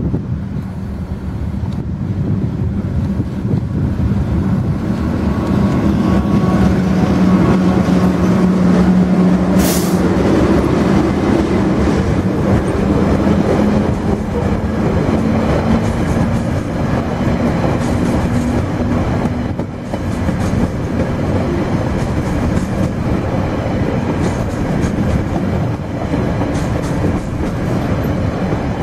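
TasRail TR class diesel locomotives (TR02 leading, TR14) passing with a container freight train: a steady engine hum that swells to its loudest about a third of the way in as the locomotives go by, then the continuous rolling rumble of the container wagons' wheels on the rails.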